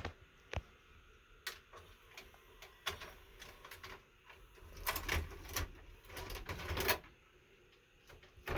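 Irregular sharp mechanical clicks and short clattering rattles, sparse at first and densest from about five to seven seconds in.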